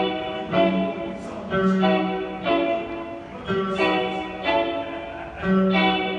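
Instrumental music: a plucked-string melody, guitar-like, with a new note or chord struck about once a second, each ringing on until the next.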